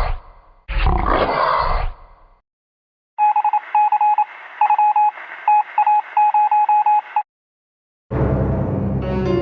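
Telephone touch-tone dialing: a run of short, same-pitched keypad beeps over a faint line hiss for about four seconds, cutting off abruptly. Before it, two deep roars, the second lasting about a second; near the end a new loud sound begins.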